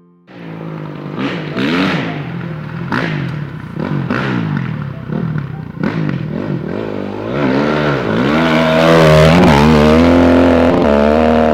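Motorcycle engine being revved in repeated short blips, its pitch rising and falling about once a second, then held at higher revs for a few seconds before dropping back near the end.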